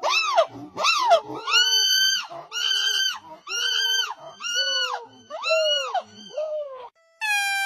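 Monkey giving a series of loud, high-pitched screeching calls, each rising and falling in pitch, about one every half second to a second; the calls in the middle are drawn out longer. Near the end a steady held tone comes in.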